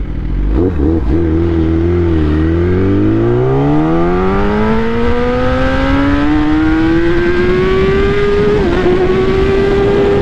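2016 Kawasaki ZX-10R's inline-four engine under hard acceleration, its pitch climbing steadily for several seconds. Near the end it dips briefly as it shifts up a gear, then keeps rising.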